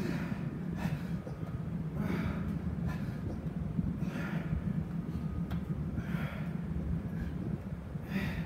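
A man breathing hard from exertion, with a sharp, hissy breath every second or two. A steady low hum runs underneath.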